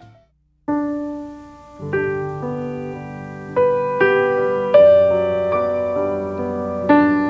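Background music: a brief silence, then a slow piano piece starts, its notes and chords each ringing and fading.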